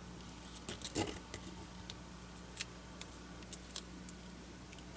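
Faint handling sounds of washi tape being lifted, nudged and pressed down onto a diamond painting canvas by hand: scattered soft taps and light crinkles, the firmest about a second in.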